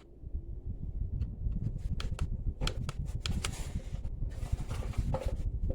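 Sendowtek rechargeable camping fan starting up about a split second in and running, its airflow buffeting the microphone in a fluttering low rumble, with scattered small clicks of the unit being handled.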